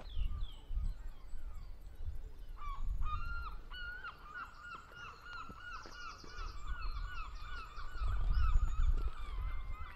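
Geese honking in a long, rapid run of repeated calls that starts a few seconds in, with small birds chirping above it and a low rumble underneath.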